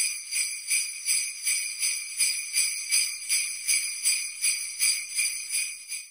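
Jingle bells shaken in a steady rhythm, about three shakes a second, stopping just before the end.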